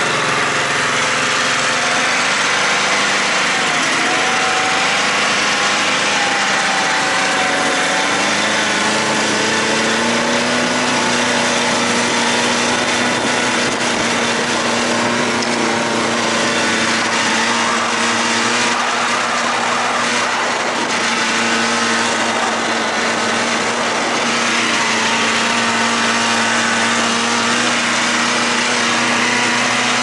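Snowmobile engine running under way. Its note wavers up and down for the first several seconds, then holds steady.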